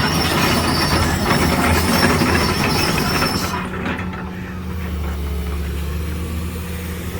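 An engine running steadily, with a harsh noise over it that stops about three and a half seconds in while the engine keeps running.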